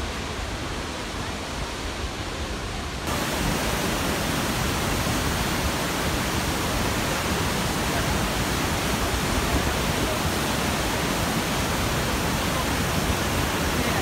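Krimml Waterfalls: a steady rush of falling and churning white water. About three seconds in, it jumps suddenly louder and hissier, then holds steady.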